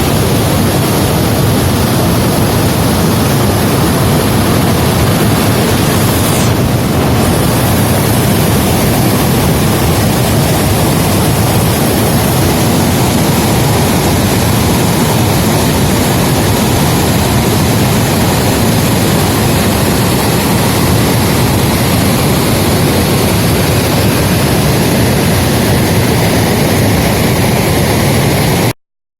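Loud, steady rush of a heavy flow of water pouring over a sediment-control dam, heard close up from inside the dam behind the falling water. It cuts off abruptly near the end.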